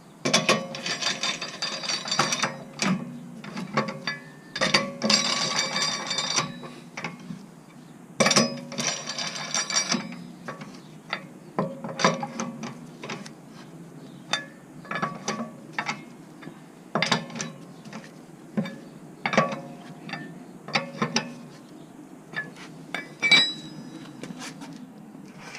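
A ratchet wrench clicking as lug nuts are run onto a car wheel's studs: three spells of fast clicking in the first ten seconds, then scattered single clicks and metal knocks.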